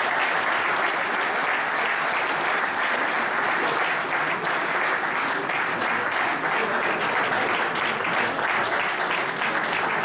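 Audience applauding: steady, dense clapping that carries on without a break.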